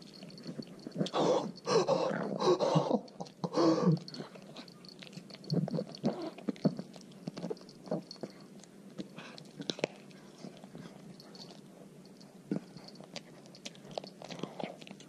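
A dog chewing and crunching a chicken foot: irregular sharp crackling bites on the bone, the loudest bunched together in the first few seconds.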